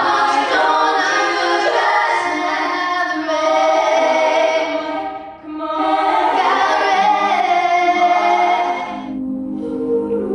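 A cappella vocal group singing in harmony, with a short break between phrases about halfway through and lower held notes near the end.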